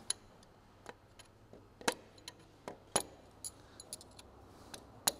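About ten light, irregularly spaced metallic taps of a small mallet on the valve rocker arms of a Spitfire's Rolls-Royce Merlin engine. The taps check that the brazed tungsten pads on the rockers have not moved.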